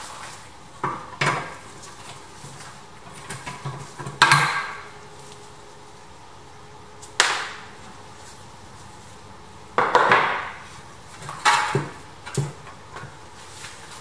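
Irregular knocks and clanks of the metal parts of a pressed-steel toy bulldozer being worked on, each a sharp strike with a brief ringing tail, coming every second or few seconds, the loudest about four seconds in and again near ten seconds.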